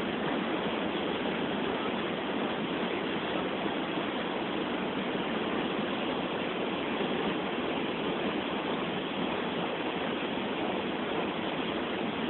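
River water pouring over a causeway weir in a steady, unbroken rush.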